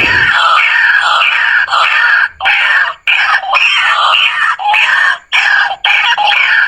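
Lure recording of a geguak (white-breasted waterhen) calling: loud, harsh calls repeated over and over in short phrases with brief breaks between them.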